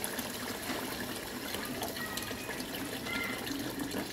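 Water poured in a steady stream from a large plastic bottle into a pot of meat and gravy, splashing into the liquid as the pot fills.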